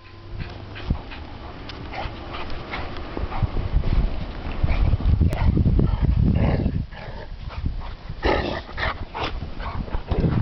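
Dogs barking and giving short high calls as they play, with a cluster of louder barks about eight seconds in, over a low rumble.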